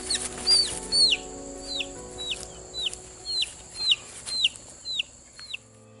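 A chick peeping over and over, about two short, high, falling peeps a second, growing fainter toward the end. Faint background music runs underneath.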